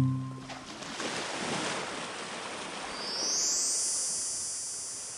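Ocean surf washing onto a beach: a wave swells up to a peak about three and a half seconds in and slowly draws back. A faint high shimmer comes in over it about three seconds in.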